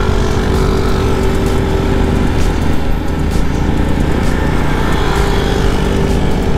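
Yamaha Sniper 155's single-cylinder engine running at a steady cruising speed, with wind rushing over the microphone.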